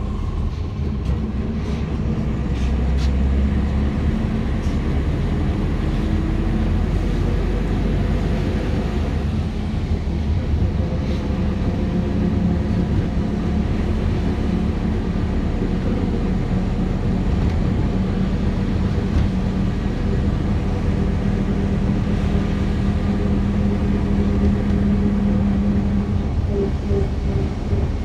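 City bus driving, heard from inside the passenger cabin: a steady engine and drivetrain drone whose pitch rises as the bus picks up speed a few seconds in, then holds level.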